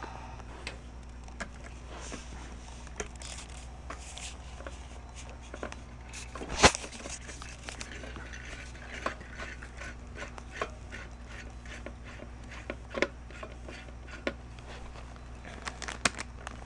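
Scattered clicks and light knocks of a CPU cooler being handled and fitted onto the processor on a motherboard, with one sharper knock about six and a half seconds in, over a steady low hum.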